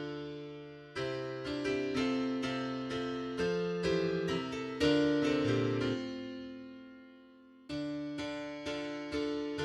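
Solo piano music: notes and chords struck in a slow melody and left to ring out. About six seconds in the sound fades almost away before playing resumes near the end.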